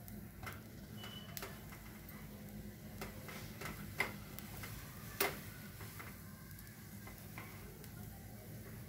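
Burger buns toasting in melted butter on a hot tawa: a faint sizzle under scattered light taps and clicks as the buns are pressed and turned on the pan. Two sharper clicks come about four and five seconds in.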